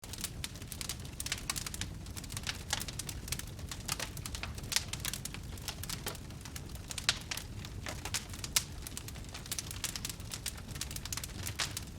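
Fire crackling: a dense, irregular run of sharp pops and snaps over a low steady rumble, with a few louder pops through the middle.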